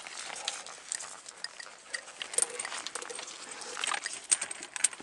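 Fixed steel safety chain clinking and rattling against the rock as gloved hands grip and pull on it, mixed with scuffs of gloves and boots on rock. Irregular clicks, busiest and loudest near the end.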